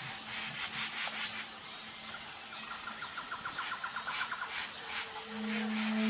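Rainforest ambience: a steady hiss with scattered soft ticks, and a quick pulsed animal trill lasting about two seconds in the middle. A low sustained ambient-music drone fades back in about five seconds in.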